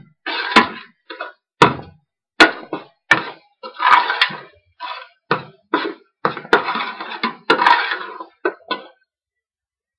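A long metal spoon stirring a thick spice-and-onion masala in a stainless steel pot: scraping strokes across the bottom with repeated sharp clanks against the pot's side. It stops about nine seconds in.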